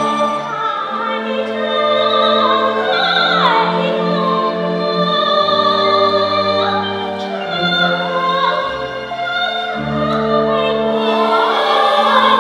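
A woman soloist singing a Chinese folk-style song in a bright, ornamented voice, with sweeping slides between notes, over a live orchestra of strings and Chinese instruments.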